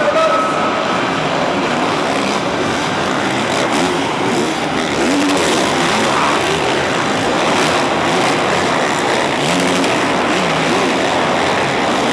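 Several motocross bikes racing, their engines revving up and down in an overlapping din that echoes around a large indoor arena.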